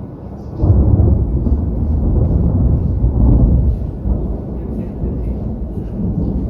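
Thunder rolling: a deep rumble breaks out about half a second in, swells again around three seconds in, then slowly dies away.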